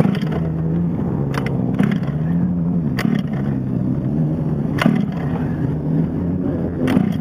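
Pull-start cord yanked several times on a Losi 5ive T's two-stroke gasoline engine, each pull a short sharp knock, over a steady engine drone in the background.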